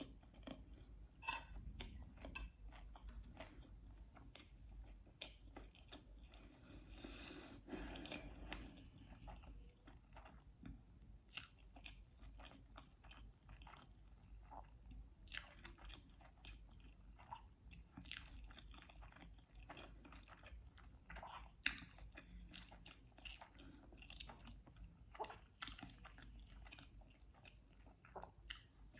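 Soft, close-up mouth sounds of a person chewing food: a steady run of small wet clicks and light crunches with no set rhythm.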